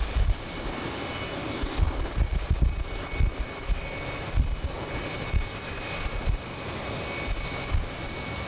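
Boeing 767 freighter's jet engines running with a steady high whine over a broad rush as the aircraft taxis. Wind buffets the microphone in irregular low rumbles.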